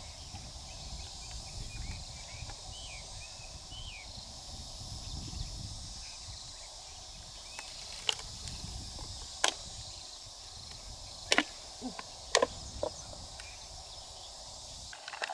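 Sharp clicks and knocks of freshwater mussel shells being handled, about six in the second half, over steady outdoor hiss and low rumble, with faint high chirps in the first few seconds.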